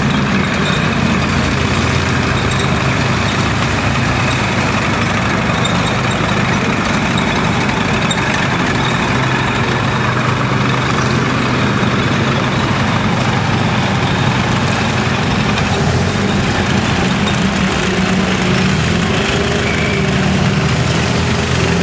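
A column of WWII tracked armoured vehicles driving slowly past, among them an American tank destroyer and a German Jagdpanzer 38(t) Hetzer. Their engines run steadily with a deep hum.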